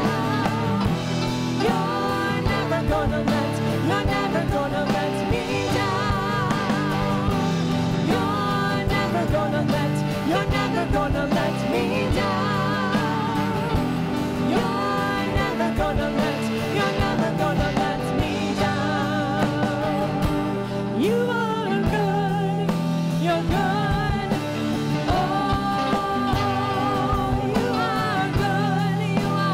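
Contemporary worship song: a band playing steadily under a lead vocal.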